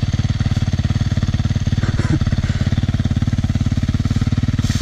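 Yamaha dirt bike's single-cylinder engine idling steadily close by, an even, fast low pulse with no revving.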